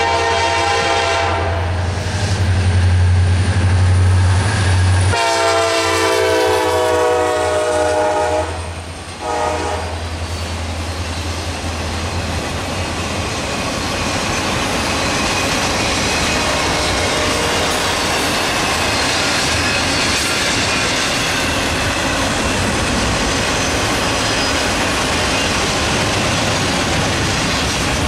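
Two EMD SD40-3 diesel locomotives run past close by, and the lead unit sounds its multi-tone air horn twice: briefly at first, then for about four seconds starting about five seconds in. After that, a long string of freight cars rolls by with a steady wheel rumble and clickety-clack.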